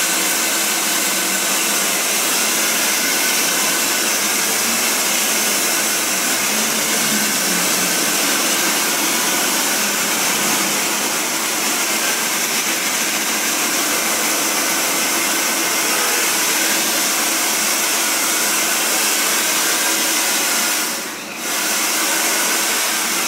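Handheld hair dryer blowing steadily, drying the freshly coated silk-screen frame; its rush of air dips briefly near the end.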